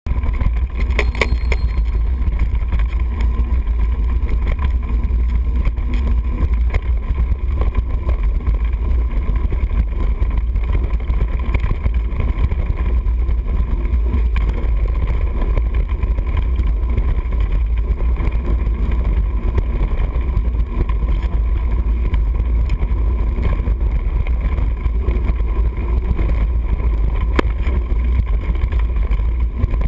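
Wind buffeting an action camera's microphone as a mountain bike rides fast along a dirt forest track: a loud, steady low rumble, with a few sharp knocks from bumps, one about a second in and another near the end.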